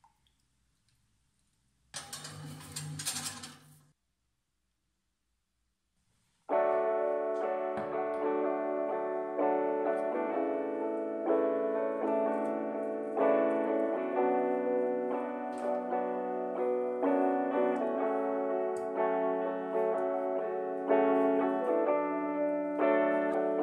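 Background music with a keyboard melody, starting about six seconds in after a brief burst of noise about two seconds in.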